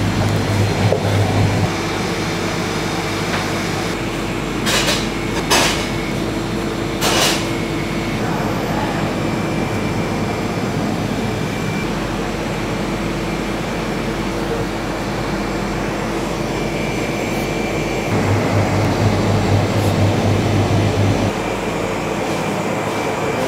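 Steady machine hum in a bakery workroom, with a deeper low hum that drops out about two seconds in and returns for a few seconds near the end. A few sharp knocks come about five to seven seconds in.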